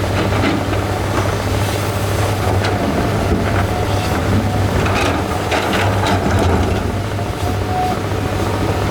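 Diesel excavator engine running steadily, with scattered knocks and clanks of big rocks being moved.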